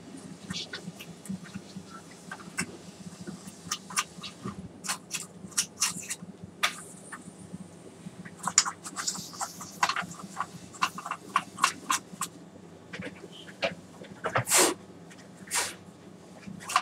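Irregular sharp clicks and light knocks of hard objects being handled, with a louder, longer clatter near the end, over a steady low electrical hum.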